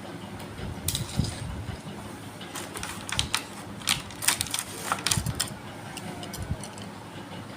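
Hot Wheels toy cars and their plastic packaging being handled: a run of irregular plastic clicks and crackles, busiest in the middle.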